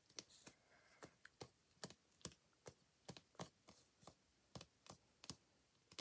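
Faint, quick clicks, about two or three a second: long fingernails tapping on clear plastic as a clear stamp is pressed firmly down onto card, section by section.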